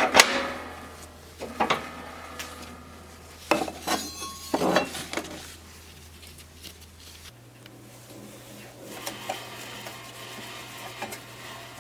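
A few sharp clinks and clattering knocks of hard objects being handled, one ringing briefly about four seconds in, followed by quieter handling noise over a steady low hum.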